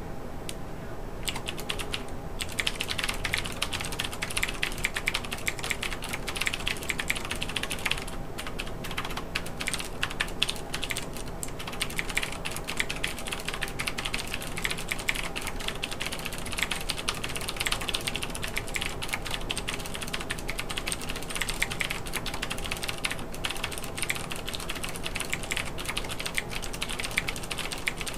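Fast typing on an Xarmor U9 Plus mechanical keyboard with clicky Cherry MX Blue switches: a dense, rapid stream of sharp key clicks that starts about two seconds in, with a few short pauses, at a pace of about 130 words per minute.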